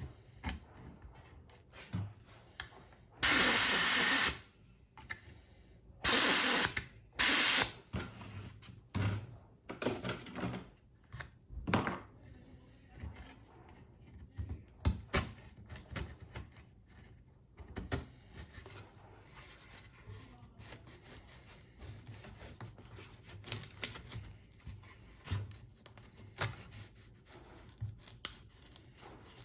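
Demoulding a carbon-fibre mudguard with plastic panel-removal tools: scattered light clicks and knocks of tools against the mould and part, with three short, loud hissing bursts, the first about three seconds in and two more close together around six to eight seconds.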